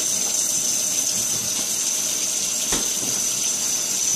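Kitchen tap running steadily into the sink, a continuous hiss of flowing water.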